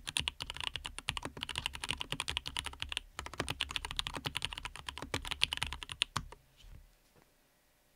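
Fast typing on a Dreadnought custom mechanical keyboard fitted with lubed Everglide Aqua King linear switches and lubed Everglide V2 stabilizers: a rapid run of key strikes with a brief pause about three seconds in, stopping about six seconds in.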